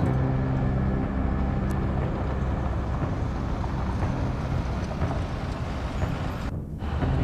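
A motor vehicle engine running steadily, with a low drone and a rushing noise, briefly thinning out near the end.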